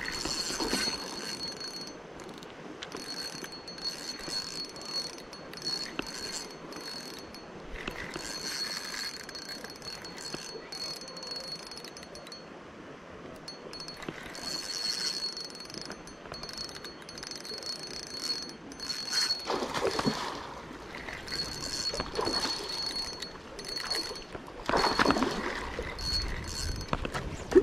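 Spinning reel being cranked against a hooked salmon: a high, thin gear whine from the reel that starts and stops again and again as the handle turns and pauses. Two louder rushes of noise come about two-thirds of the way in and near the end.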